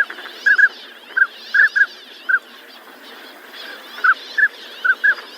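Ducks calling: a run of loud, short, quack-like calls coming singly and in quick pairs, with a pause of about a second and a half in the middle, over a busy background of other bird calls.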